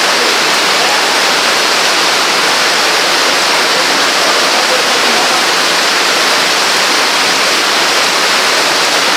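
Heavy rain falling steadily, a loud, even rush of water with no breaks.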